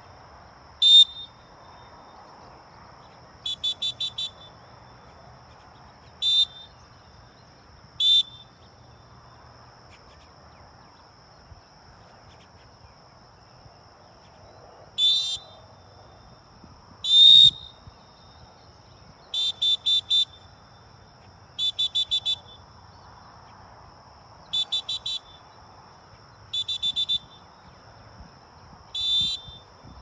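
Retriever-training dog whistle blown in sharp, high blasts, about a dozen in all: some single blasts, others quick strings of three to five toots. These are the usual single-blast sit signal and multi-toot come-in signal used to handle a retriever on a blind retrieve.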